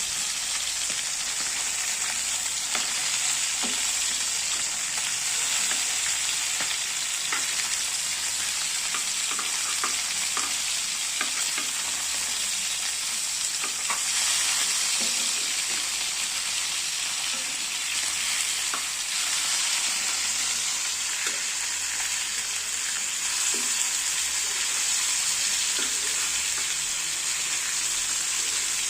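Large pieces of fish frying in oil, a steady sizzle with scattered small pops and crackles.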